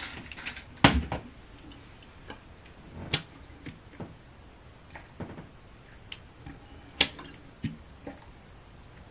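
Handling noise from a clear plastic water bottle being picked up and drunk from: a few sharp clicks and knocks, about a second in, around three seconds and near seven seconds, with fainter ticks between.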